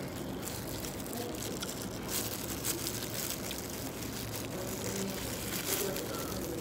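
Steady low background hum of a dining room, with a few faint soft crinkles of a plastic food-handling glove as a hand picks up fish and mango.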